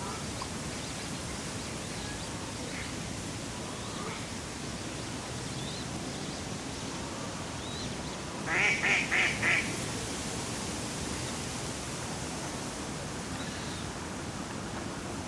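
A duck quacking four times in quick succession, about halfway through, over a steady background of breeze. Faint, brief bird calls come now and then.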